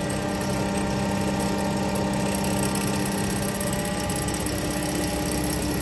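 Kent hydraulic surface grinder running: a steady machine hum with several steady tones over a whir, from its motors and hydraulic power pack. A low tone drops out a little past halfway.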